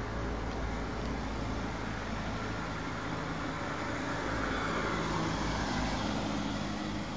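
A car driving past close by, its low engine hum and tyre noise swelling to loudest about five seconds in, then easing off.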